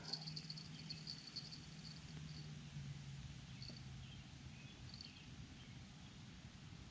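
Faint outdoor ambience: a thin, high chirping that mostly dies away after about two and a half seconds, over a low steady hum.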